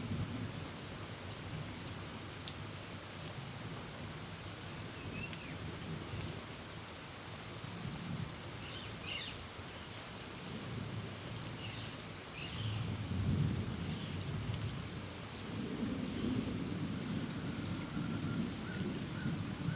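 Heavy rain falling on a tin roof, with low rolling thunder that swells about two-thirds of the way through. Short high chirps are scattered throughout.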